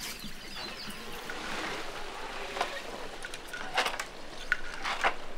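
Wooden hand loom at work: a few sharp wooden knocks and clacks in the second half, over a soft rustle of thread.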